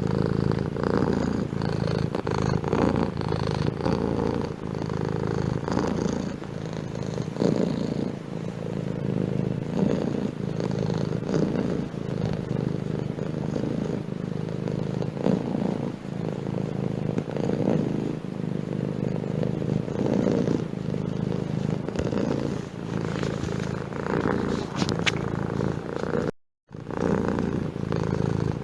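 Domestic cat purring close to the microphone: a steady low rumble that swells and eases with each breath. The sound drops out completely for a moment near the end.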